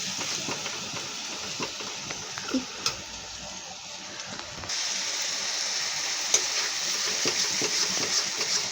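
Onion-and-spice masala sizzling in hot oil in a pan, stirred with a spatula that scrapes and clicks against the pan. About two thirds through, the sizzle suddenly gets louder.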